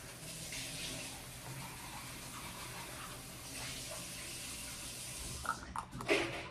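A steady background hiss, with a few soft clicks and knocks near the end.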